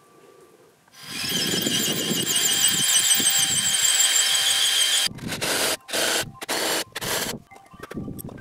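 Cordless drill boring into an oak roof timber: after about a second it starts and runs continuously with a steady whine for about four seconds, then is run in about four short bursts.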